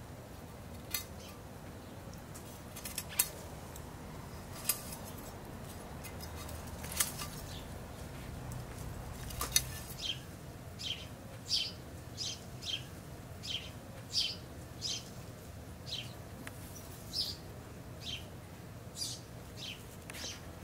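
A few sharp clicks in the first half, then a bird chirping over and over in short high chirps, a little more than one a second, above a low steady outdoor background.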